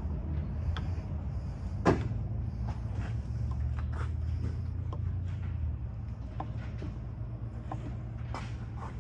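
Scattered light clicks and taps, with one sharper knock about two seconds in, from a screwdriver pumping the piston of a new brake master cylinder during bench bleeding. A steady low hum runs underneath.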